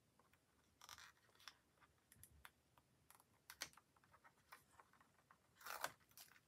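Release-paper backings being picked and peeled off foam adhesive pads with the fingers: faint scattered clicks and short papery crackles, the loudest a little before the end.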